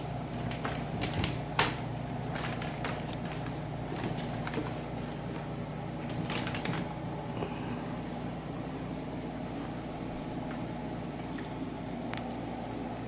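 Air conditioner running with a steady, loud hum, with a few light clicks and knocks from things being handled.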